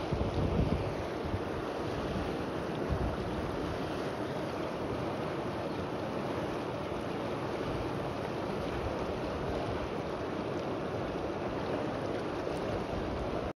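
Steady rushing of river water, with wind buffeting the microphone near the start.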